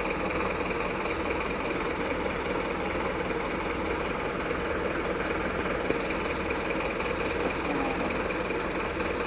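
Truck engine idling steadily, a dense, even mechanical running sound with no revving.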